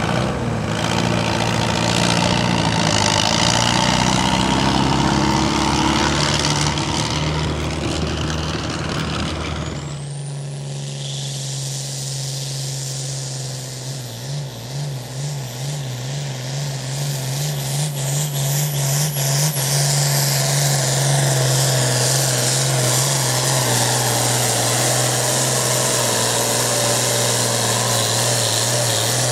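Turbocharged International pulling tractor's diesel engine at full throttle while pulling the sled. About a third of the way in, a high turbo whine rises sharply and then holds over a steady deep engine note. The note wavers for a few seconds and then stays steady. Before that, there is loud engine noise with rising and falling revs.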